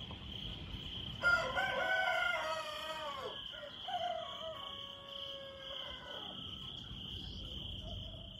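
A rooster crowing twice: a first crow about a second in and a second about four seconds in, each held and then falling away at the end, over a steady high-pitched drone.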